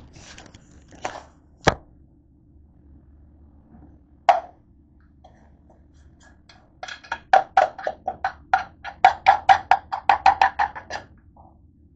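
Handling noise and a sharp knock as something is set down, another single knock a few seconds later, then a quick run of light, sharp taps and clicks, about four a second for some four seconds.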